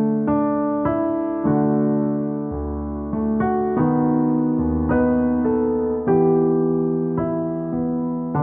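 Background music: a soft electric piano playing slow, sustained notes and chords, with a new note struck about once a second.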